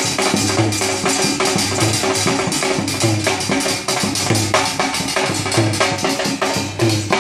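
Live Rajasthani folk music played for the dance. A dhol, a large barrel drum, beats a fast, steady rhythm of rapid strokes with a deep stroke recurring, over sustained melodic notes.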